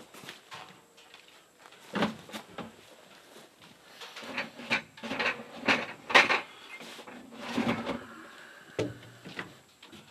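Clunks and knocks of plastic containers, lids and a bottle being handled and set down on a pickup's tailgate, in a run of separate knocks with the loudest about six seconds in.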